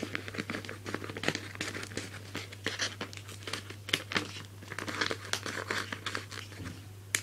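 Scissors cutting a square out of a shiny, see-through plastic folder: a run of irregular snips with the sheet crinkling.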